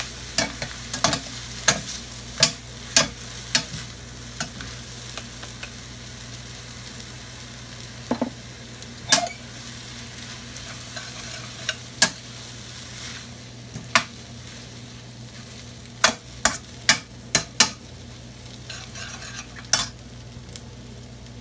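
Glass noodles, mushrooms and vegetables sizzling in a stainless steel skillet while being stir-fried, with a wooden spatula and a metal spatula knocking and scraping against the pan in irregular sharp clicks over the steady frying hiss.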